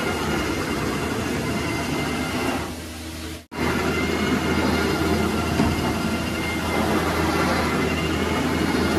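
Rotary carpet-extraction wand running over wall-to-wall carpet: a steady vacuum rush and motor hum from the hot-water extraction suction and the spinning cleaning head. It sags briefly, cuts out for an instant a little over three seconds in, then carries on the same.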